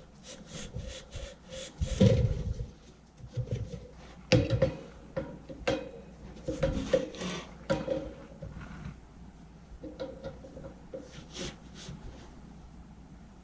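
Rust being rubbed and scraped off the steel shaft of an HVAC blower motor, so that the blower wheel's hub can slide off. A quick run of short scraping strokes comes first, then scattered scrapes and sharp knocks of metal parts, growing sparser toward the end.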